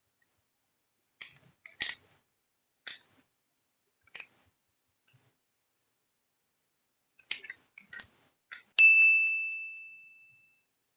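Light clicks and taps of small plastic toy pieces being handled, in a few short clusters. Near the end comes a single bright ding that rings out and fades over about two seconds.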